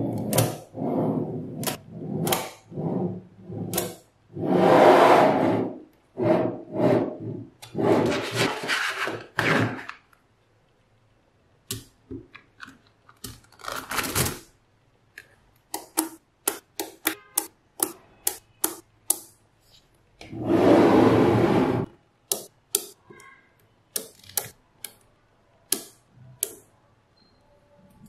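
Small magnetic balls clicking and clattering as strips of them are snapped together and pressed onto a larger build, with a few longer runs of rattling and a quick string of sharp clicks about halfway through.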